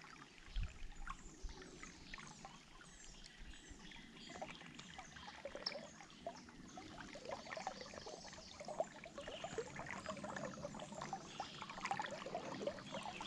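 Faint running water of a creek current, with scattered small ticks and splashes.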